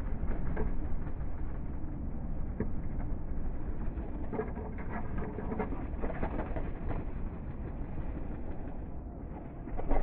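House sparrows fluttering in and out of a window seed feeder, with short bird calls scattered through, busiest in the middle, over a steady low rumble.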